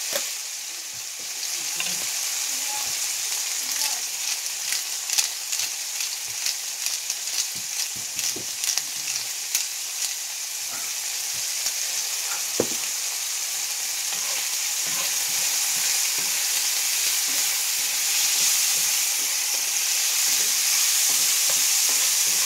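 Pork pieces sizzling in a hot cast-iron skillet: a steady frying hiss with a run of sharp clicks and pops in the first half and a single knock about twelve seconds in. Toward the end a wooden spoon stirs the meat and the sizzle grows louder.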